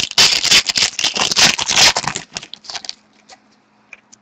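Wrapper of a pack of hockey trading cards crinkling and tearing as it is opened, with dense crackling for about three seconds. After that come a few soft clicks as the cards are handled.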